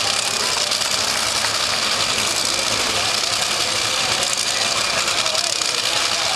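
Drag racing cars' engines running at idle at the starting line: a steady, loud engine noise that holds level with no revving or launch.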